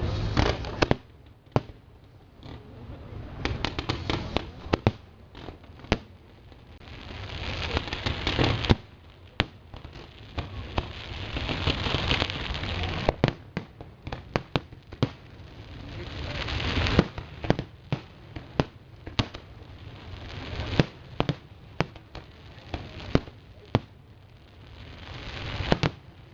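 Fireworks display: many sharp bangs of aerial shells bursting at uneven intervals. Between them come several swells of hissing crackle that build over a couple of seconds and then break off suddenly.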